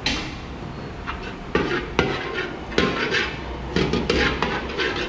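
Metal kitchen utensils clattering against pots and pans: a run of irregular sharp knocks and scrapes, about half a dozen.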